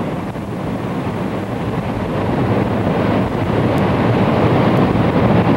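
Floodwater rushing through the eroding breach of an earthen cofferdam: a steady, deep rushing noise that grows gradually louder.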